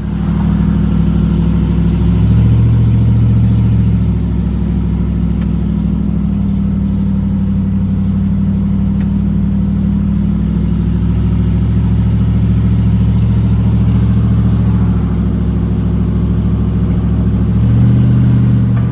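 Pickup truck engine running, its note shifting up and down a few times.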